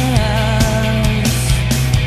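Background music with a steady drum beat, a bass line and a held, wavering lead melody.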